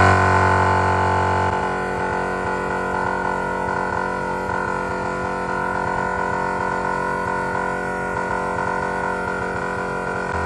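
Napa MaxiTrac Twin 12-volt air compressor running steadily with an even mechanical hum, pumping air through a quad hose kit to inflate all four tyres at once from off-road pressure.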